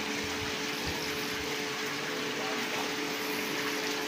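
A steady machine hum, two held tones over an even hiss, that does not change.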